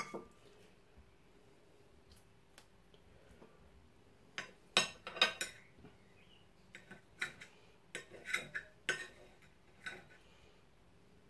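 Cutlery clinking: a knife tapping and scraping on a china plate while cooked rabbit meat is picked off the bone. The clicks are short and irregular, in small clusters through the second half.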